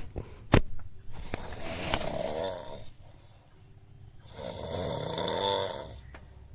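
A sleeping person snoring: two long snores about three seconds apart. There is a sharp click about half a second in.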